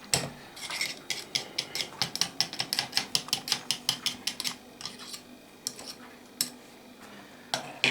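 Stirring in a cup of liquid silicone lure mix, the utensil clinking against the cup's sides in a fast run of about four or five clicks a second, thinning to a few single clicks after about five seconds.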